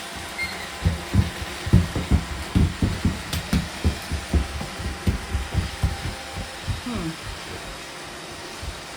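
Robot vacuum cleaners running with a steady hum, under a run of irregular low thumps, about three a second, from about one second in until about seven seconds in.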